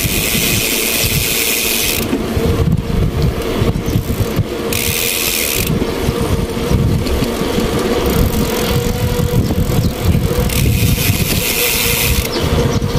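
Wind rushing over the microphone during a ride, with hiss that comes and goes in gusts over a steady low rumble and hum of the moving vehicle.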